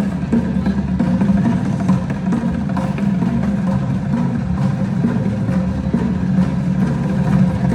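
Music with drums and percussion playing, a steady beat of many drum hits.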